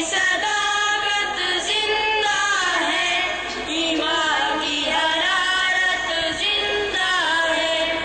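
A group of schoolboys singing a nazm together into microphones, their voices held in long, bending melodic lines.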